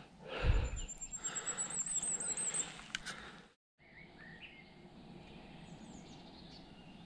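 Wild birds singing in woodland: a high, repeated trill early on, then scattered chirps. For the first half there is irregular close rustling and a couple of sharp clicks. After a brief dropout in the sound it is quieter, with only the birds.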